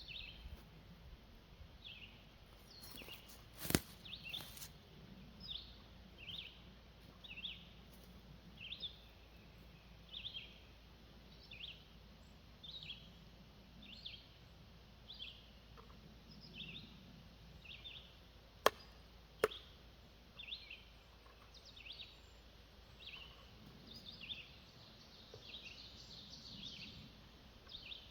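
A bird repeating a short, high, falling chirp about once a second, over faint outdoor background noise. A sharp click sounds about four seconds in, and two more come in quick succession past the middle.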